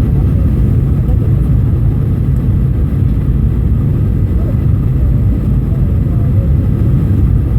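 Steady low rumble of a Boeing 737-800's engines and rushing air, heard from inside the passenger cabin in flight.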